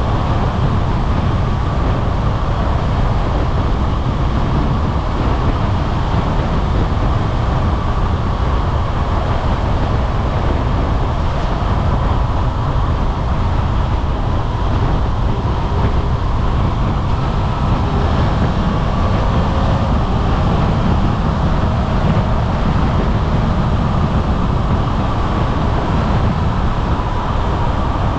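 Suzuki V-Strom 800RE's 776 cc parallel-twin engine running steadily under way, heard from the cockpit, with a deep rumble and rushing road and wind noise.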